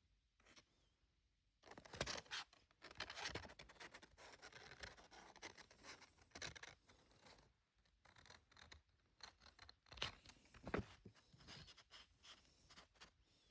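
Faint rustling and scraping of a paper guide leaflet being handled, with scattered small clicks, starting about two seconds in.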